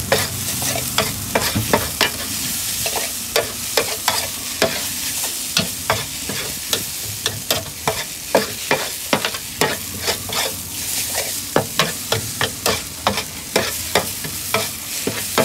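Metal spatula scraping and clacking against a large shallow metal pan as yellow noodles with beef and vegetables are stir-fried, over a steady sizzle. The sharp strikes come irregularly, a few per second.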